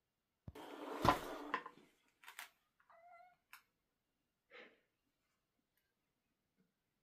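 Long-haired domestic cats: a noisy rustle with a thump in the first two seconds, then a short meow about three seconds in and another brief call about a second and a half later.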